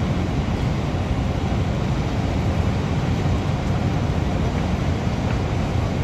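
Natural gas jetting from a ruptured buried pipe and burning as a tall flame: a deep, steady rushing noise.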